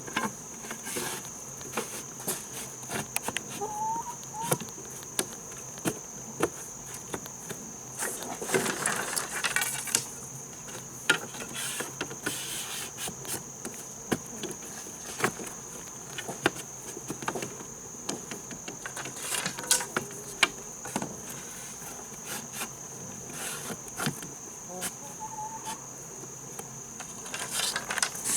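A steady high-pitched insect drone, such as crickets, runs throughout, with frequent short knocks, taps and rustling from hand work on a building. Two brief rising chirps come about 4 seconds in and near the end.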